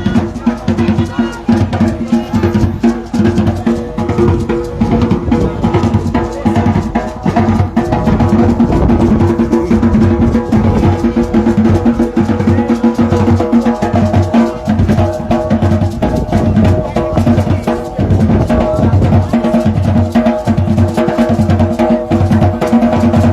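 Loud music with a steady drum-kit beat and held bass and keyboard tones.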